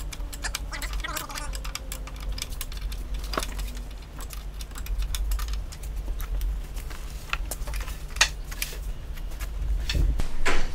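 Irregular small metallic clicks and taps of hand work as a gas strut is fitted to the aluminium base of a clamshell rooftop tent, with one sharper click about eight seconds in, over a low steady hum.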